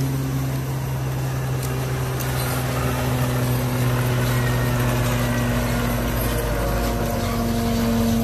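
The engine powering a horse-drawn New Holland 717 forage chopper, running at a steady drone.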